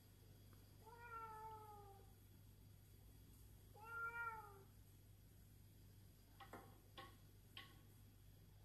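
A cat meows twice, each a drawn-out call that falls slightly in pitch. Near the end come a few short, light clicks.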